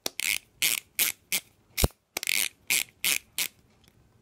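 NovoPen Echo insulin pen's dose selector being turned, giving a run of sharp clicks about three a second, with one duller knock a little under two seconds in; the clicking stops about three and a half seconds in.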